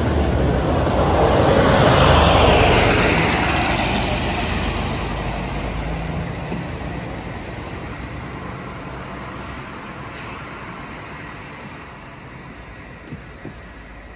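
A road vehicle driving past: its noise swells to a peak about two seconds in and then slowly fades away. Two light clicks near the end.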